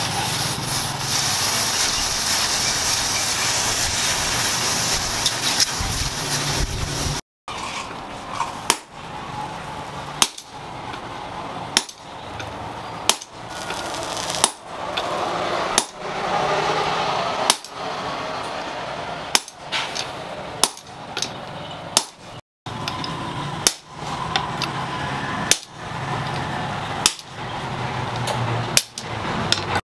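A steady rushing noise from a blower-fed forge fire for about seven seconds. Then a run of hand-hammer blows on hot steel, about one every one and a half seconds, with the forge running underneath; the hammer strikes are the loudest sounds.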